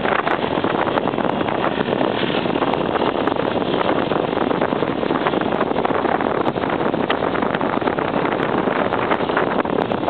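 Motorcycle ridden at speed along a gravel forest road: a steady, loud rush of wind noise on the microphone over the engine, with many small ticks and crunches from the tyres on gravel.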